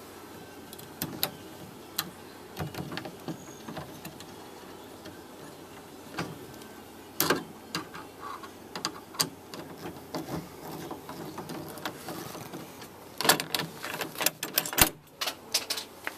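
Hand assembly of a plastic compost tumbler: irregular clicks and knocks as its parts and hardware are handled and fitted, with a quick cluster of knocks near the end.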